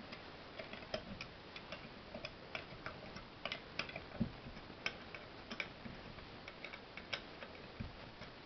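Small open-end spanner working a nut on an electric motor's end-cap tie stud: irregular light metal clicks as the spanner is turned and repositioned on the nut, with two duller knocks about four and eight seconds in.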